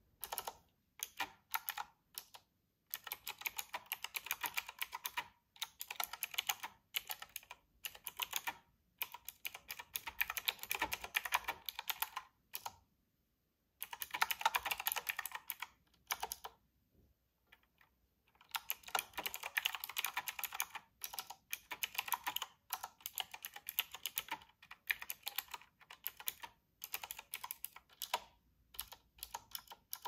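Fast clicking keystrokes on a typewriter-style keyboard with round keycaps: the clickety-clack comes in runs of several seconds with brief pauses, the longest pause about halfway through.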